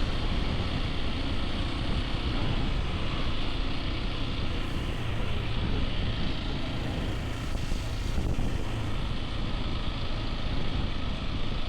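Hero XPulse 210 single-cylinder motorcycle engine running at steady riding speed, under a steady rush of wind on the microphone.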